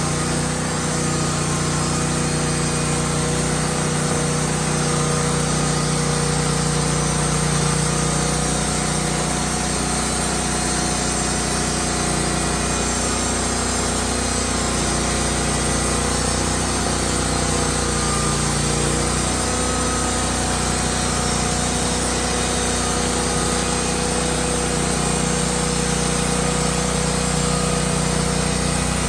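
Woodmizer LT15 portable band sawmill running steadily, its engine driving the band blade as it saws a pine log.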